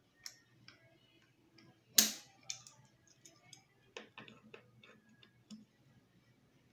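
Irregular clicks and small knocks as a threaded metal valve stem is screwed into a plastic coolant reservoir with a hand tool, with one sharp loud click about two seconds in and a quick run of clicks around four seconds.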